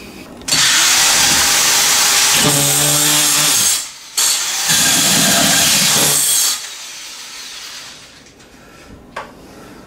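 Corded drill driving a hole saw through a drywall ceiling, cutting a recessed-light opening. It runs in two loud bursts, the first about three seconds long and the second about two, with a short stop between, then it falls quiet.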